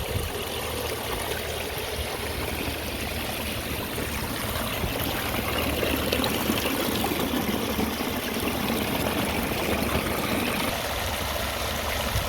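Water from a pondless waterfall splashing and trickling steadily over natural stone.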